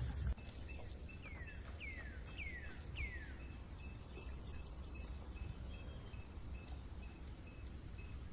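Rural outdoor ambience: a steady high insect drone, with a bird giving four descending whistled notes about a second in and a short piping note repeating about twice a second. A louder low sound cuts off just after the start.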